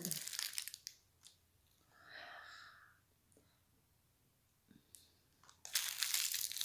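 Gold foil wrapper of a Ferrero Rocher chocolate crinkling as it is peeled open, then a few faint crunches as the chocolate is bitten, and loud foil crinkling again near the end.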